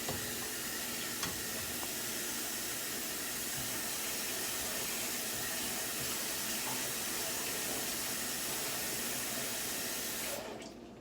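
Water running steadily from a kitchen tap, shut off suddenly near the end.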